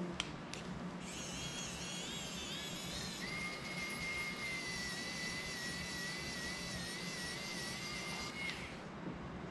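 Small electric precision screwdriver running on the screws of an FPV drone frame: a high-pitched motor whine that wavers for the first couple of seconds, then holds one steady pitch before stopping about a second before the end.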